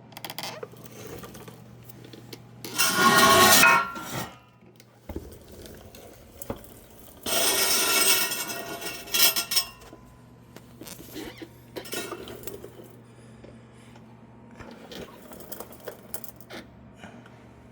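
Metal tools and parts clinking and rattling against each other, with two louder noisy bursts of one to two seconds each, about three seconds in and again near the middle, over a steady low hum.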